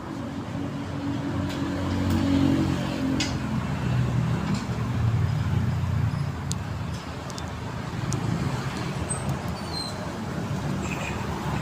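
Road traffic: a motor vehicle's engine rumbling, growing louder about two seconds in and easing off after about six seconds.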